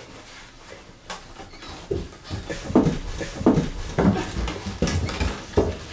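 Footsteps on stairs: about six heavy, evenly paced steps, starting about two seconds in.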